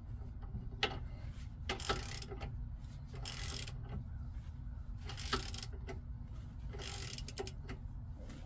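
Ratchet socket wrench clicking in short runs of strokes, about every one and a half to two seconds, as it drives a rear brake caliper bracket bolt home. The bolt is now turning easily past its original thread-locker.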